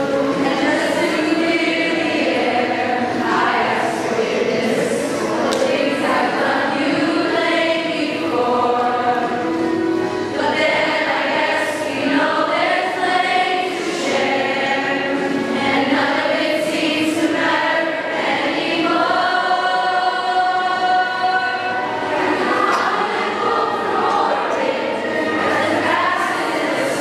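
A school choir of children's and women's voices singing together, with long held notes.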